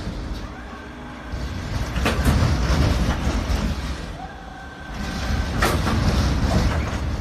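Disco (UFO) amusement ride running empty on a test run. The turntable rumbles along its curved track, swelling and fading as it swings back and forth about every three and a half seconds, with a clack at each swing.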